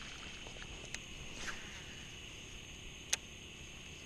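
Steady chorus of insects, a high continuous trill. A short swish comes about a second and a half in, and a sharp click, the loudest sound, about three seconds in.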